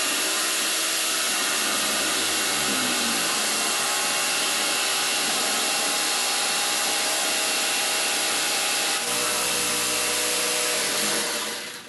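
Electric jigsaw running steadily as it saws through the wooden side panel of a console table, cutting it shorter. The saw stops near the end.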